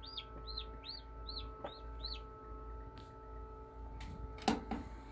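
Newly hatched chick peeping: a run of very loud, high peeps, each rising then falling in pitch, about two or three a second, that stops about two seconds in. A few sharp clicks follow near the end.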